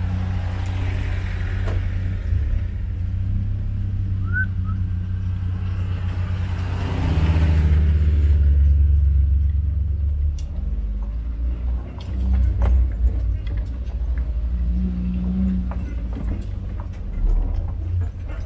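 A car driving, its engine a steady low hum, louder for a few seconds near the middle. Frequent short clicks and knocks in the second half.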